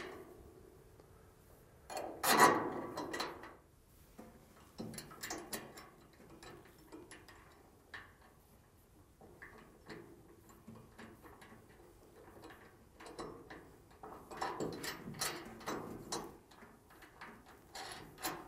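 Irregular metallic clicks and clatter of bolts, nuts and hand tools on a steel bracket as carriage bolts are fitted. The loudest clatter comes about two seconds in, with a denser run of clicks near the end.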